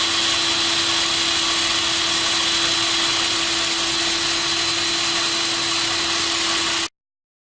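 Electric motor of a concrete core drill running steadily with a constant whine, cutting off abruptly near the end.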